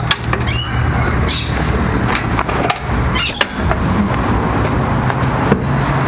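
Latches on a camper trailer's rear door being undone by hand: several sharp clicks and knocks with short squeaks, over a steady low rumble.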